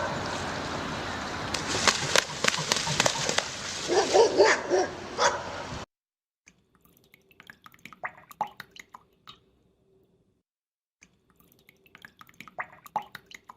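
Short animal calls and yelps over steady background noise, cutting off suddenly about six seconds in; then a much quieter stretch of scattered short calls and clicks.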